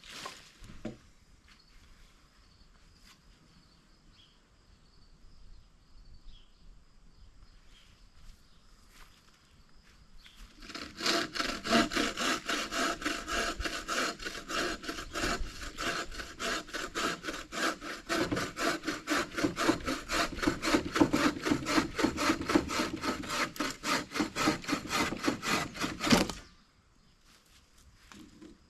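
Hand saw cutting through wood in quick, steady back-and-forth strokes. It starts about ten seconds in, runs for about fifteen seconds and stops abruptly.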